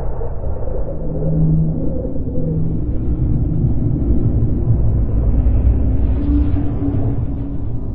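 Low, steady rumble recorded by a microphone presented as listening on Mars, with a faint hum that comes and goes in pitch.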